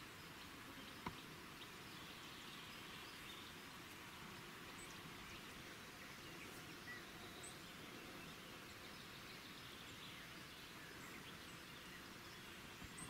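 Faint outdoor ambience: a steady low hiss with a few faint, distant bird chirps and one sharp click about a second in.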